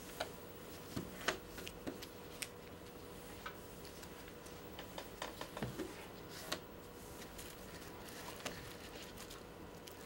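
A large sheet of origami paper being folded and creased by hand: soft, scattered crinkles and light taps of paper on the table, over a faint steady hum.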